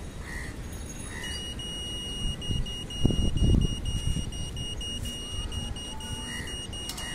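Handheld satellite finder meter beeping: a steady high-pitched electronic tone, chopped into about four beeps a second, which starts a little over a second in. This is the meter's audible signal indicator while the dish is being aimed. A low rumbling thump about three seconds in is the loudest moment.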